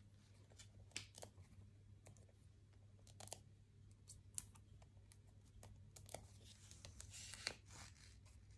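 Quiet handling of card and paper: faint rustles and light clicks as small foam adhesive pads are peeled from their sheet and pressed onto the back of a cardstock circle, with a longer crackly rustle about seven seconds in.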